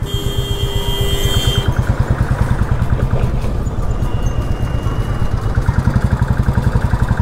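Motorcycle engine running as the bike cruises at low speed, a steady quick thumping heard close up from the rider's seat. A steady high tone sounds over the first second and a half.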